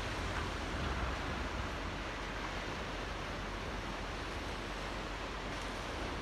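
Small waves lapping at the shore of a coastal channel: a steady wash of water noise with no distinct breaks.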